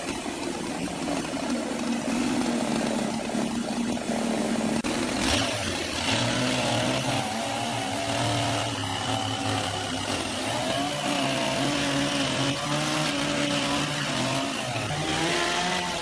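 Large two-stroke chainsaw with a long bar running as it cuts into a big log, its engine pitch wavering up and down with the load.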